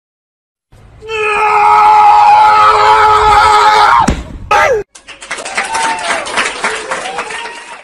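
A loud, long yell held for about three seconds that drops sharply in pitch and breaks off, followed by a short falling cry and then noisier, excited voices.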